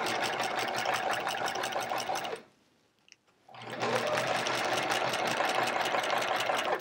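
Sewing machine fitted with a walking foot, stitching through layers of a quilt in a fast, even run of needle strokes. It stops about two and a half seconds in, pauses for about a second, then starts up again and keeps stitching at the same pace.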